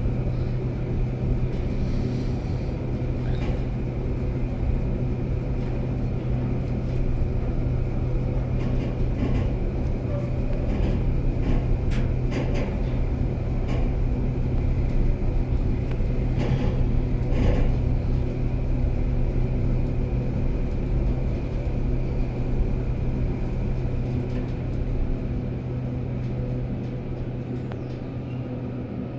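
Schindler passenger elevator travelling down at speed, heard from inside the car: a steady low hum and rumble with a few light clicks along the way. The sound grows quieter in the last few seconds as the car slows toward the bottom floor.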